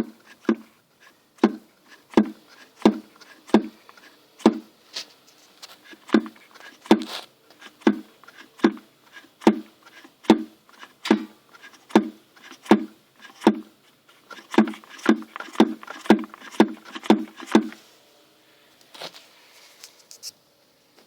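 Nissan X-Trail T31 front strut dust boot knocking: a dull, repeated knock a little under once a second, quickening to about two a second for the last several knocks, then stopping.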